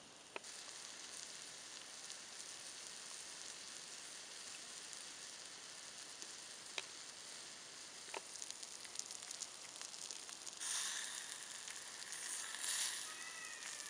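Chicken breast and vegetables sizzling on a hot Himalayan salt block over a wood fire: a faint, steady hiss with a few small ticks, swelling into two louder surges near the end.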